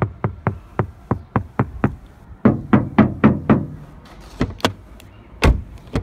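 Knuckles rapping on a car door lined with fresh sound-deadening material, a knock test of the insulation. There are quick even knocks, about four a second, then a short run of heavier, deeper knocks a little before halfway, then a few single hard knocks, the loudest and deepest near the end.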